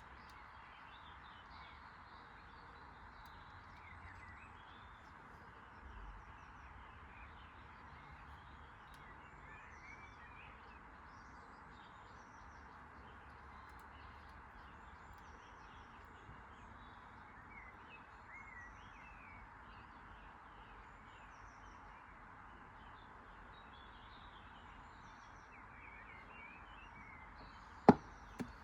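Small birds chirping and twittering here and there over a steady background hiss. Near the end comes one sharp knock, the loudest sound, followed by a fainter tap.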